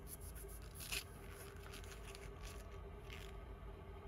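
Faint handling noise from a pair of steel electrician's pliers being turned over in the hands: two brief scrapes, about a second in and again about three seconds in, over a low steady room hum.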